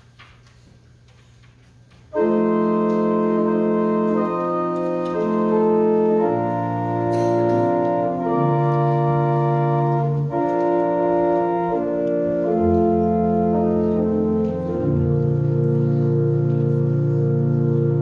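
Church organ playing sustained, slowly changing chords as the introduction to a hymn, starting suddenly about two seconds in after a low hum.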